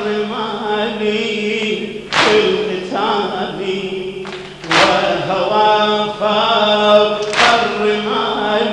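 Male voices chanting an Arabic Shia mourning lament (latmiya) into a microphone, in long held melodic lines. A loud, sharp beat falls about every two and a half seconds, in time with the chant.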